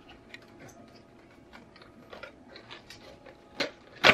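Cardboard box being handled and opened by hand: scattered small scrapes and clicks of the card, with two sharper snaps near the end.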